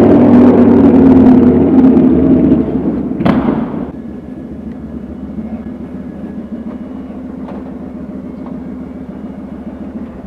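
Kawasaki Vulcan 900's V-twin engine running loud under way, with a single sharp clunk about three seconds in. The engine then drops to a much quieter steady idle inside an underground car park.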